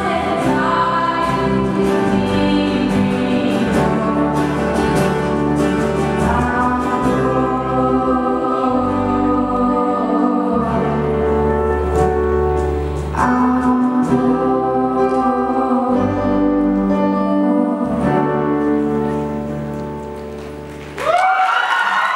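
Live band song with a female lead vocal, backing voices and acoustic guitars, in long held notes over a steady low bass. The song fades out about 19 seconds in and an audience bursts into applause near the end.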